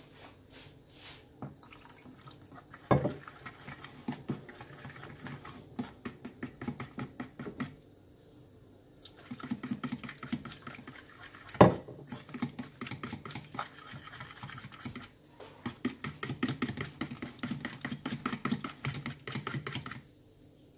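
Metal spoon whisking a thin flour-and-water batter in a plastic bowl: fast, rhythmic clicking and scraping in spells, with two louder knocks, about three seconds in and again about twelve seconds in.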